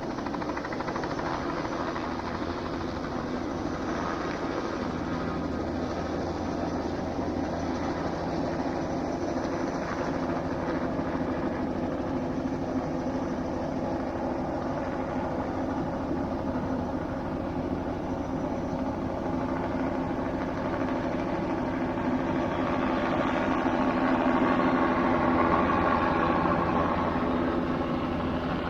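Helicopter flying overhead, a steady rotor and turbine drone that swells louder about three-quarters of the way through, then eases off again.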